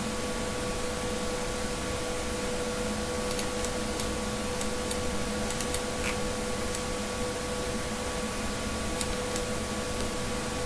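Steady background hiss with a constant electrical hum, with a handful of faint, sharp clicks scattered through the middle.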